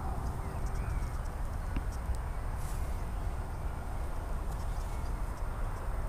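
Low, steady rumble of handling noise on a handheld camera, with faint rustling and a few small clicks.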